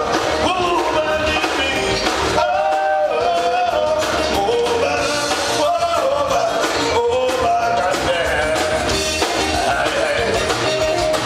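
Live band playing amplified dance music: electric guitars and drums with a singer's voice over them, steady and without a break.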